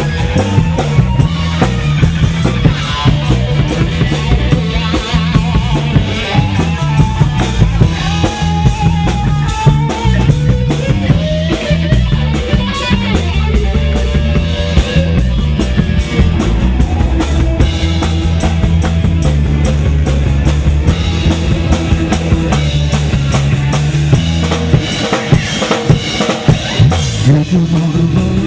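Live rock band playing: electric guitars over a drum kit beat.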